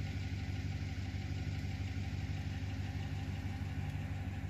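Truck engine running steadily, a low, even hum heard from inside the cab.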